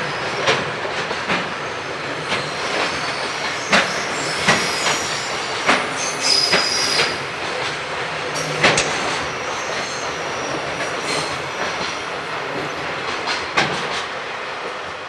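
Freight train behind an EF66 electric locomotive rolling past, the wagons' wheels clattering at uneven intervals over the rail joints, with a brief wheel squeal about six and a half seconds in. The sound starts to fade near the end.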